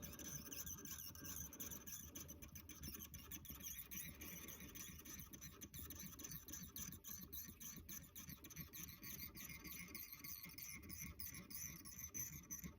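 Faint, irregular small ticks of fine black fly-tying thread being wound from a bobbin around a hook held in a vise, building up the fly's head.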